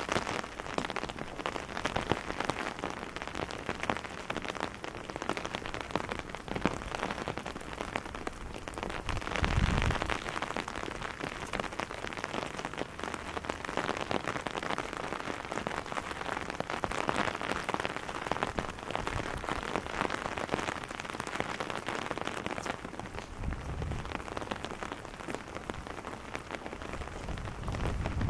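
Steady rain falling on a wet cobblestone street, a dense patter of drops, with a brief low rumble about ten seconds in.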